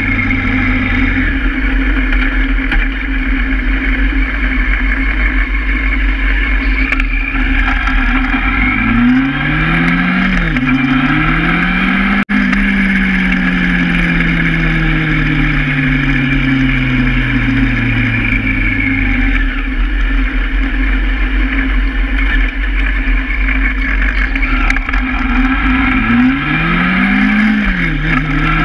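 Honda Hornet motorcycle engine on the move, over steady road and wind noise. About eight seconds in the revs climb, drop for a moment at an upshift and climb again, then the pitch falls slowly as the bike eases off. Near the end it revs up again with another quick shift.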